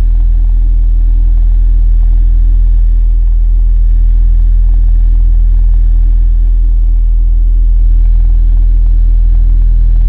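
Car subwoofer playing a loud, steady 40 Hz sine test tone from a mono block amplifier, driven into clipping so that a ladder of buzzy distortion overtones rides on the tone. Near the end the distortion grows as the bass knob is turned up, into a pretty hard clip.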